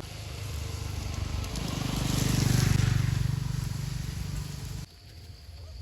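A motor vehicle's engine passing by: a low hum that grows louder to a peak midway, then fades and cuts off suddenly about five seconds in.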